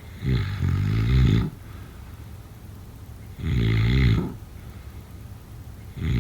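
Snoring in a steady rhythm: a rattling snore about a second long every three seconds or so. There are two full snores, and a third starts near the end.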